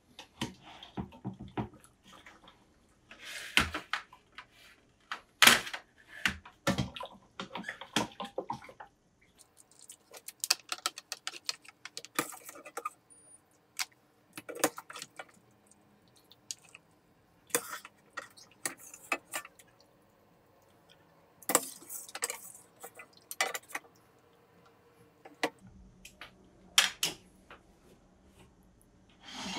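Metal skimmer and wire spider clinking and scraping against a stainless stockpot and an aluminium sheet pan as wet bones and vegetables are lifted out of the stock and dropped onto the pan, with liquid dripping and splashing. Scattered knocks and clinks throughout.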